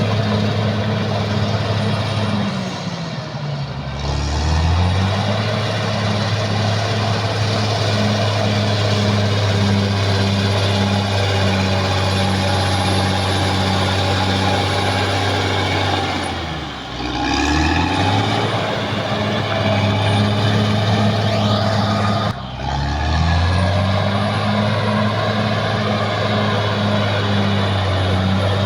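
Caterpillar D6R XL bulldozer's diesel engine running hard at work. Its steady drone drops in pitch and climbs back three times as the revs fall away and recover.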